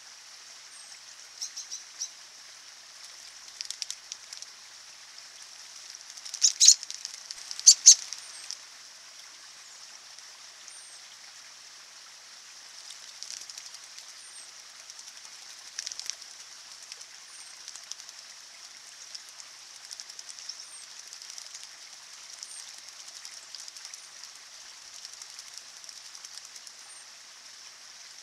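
American robins bathing in a shallow trickling stream: bursts of splashing and wing-fluttering in the water, loudest in two quick bouts around seven seconds in, over a steady trickle of running water. A faint short high bird chirp repeats every second or two.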